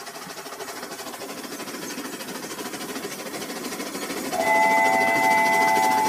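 Battery-powered toy train running on plastic track, its small motor and wheels whirring and growing louder as it approaches. About four and a half seconds in, its electronic horn sounds a steady chord for about a second and a half.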